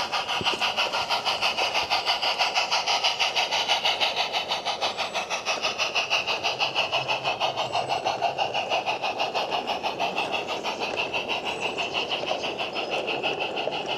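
Small garden-railway locomotive running with a train of sand-loaded hopper wagons rolling past, making a fast, even beat of mechanical clatter.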